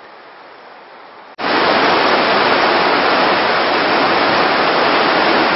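Steady rush of flowing river water, faint at first, then about a second and a half in a sudden jump to loud, steady rushing of fast water over shallows.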